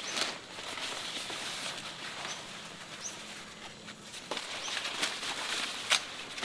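Leaves rustling and crackling as they are handled and pulled, with scattered snaps and one sharp snap near the end.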